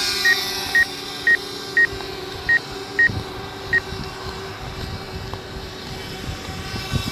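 DJI Mavic Air quadcopter's propellers humming steadily at climb speed just after take-off, the hum fading over the last second or so as it gains height. Seven short high beeps, roughly half a second apart, sound over it in the first four seconds.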